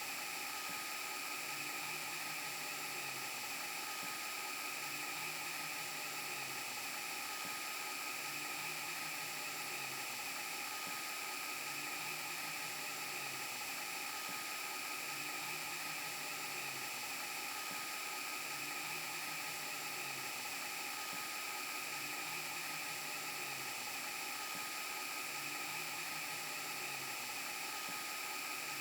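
VHS rewind glitch sound effect: a steady tape hiss and whine with several high held tones over it, and a low hum that pulses about every two seconds as the effect loops.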